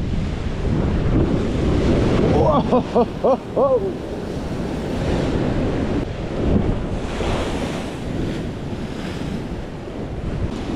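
Surf breaking against a rocky shore, with strong wind buffeting the microphone. About two seconds in, a run of five short rising-and-falling calls cuts through.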